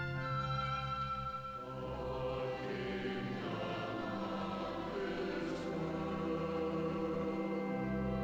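Choir singing long, held chords.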